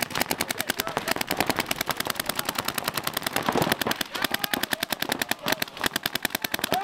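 Paintball markers firing in rapid, continuous volleys, more than ten sharp shots a second.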